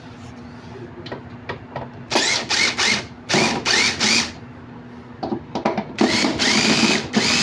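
Electric power drill run in short trigger bursts, its motor pitch rising and falling with each pull: four quick bursts, then a longer run near the end.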